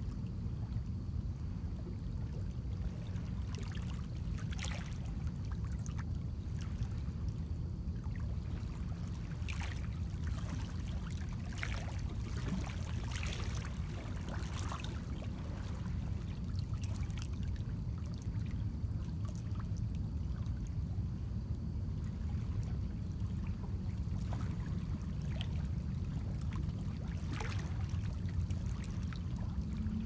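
Small lake waves lapping and splashing against shoreline rocks and pebbles in irregular little splashes, over a steady low rumble of wind on the microphone.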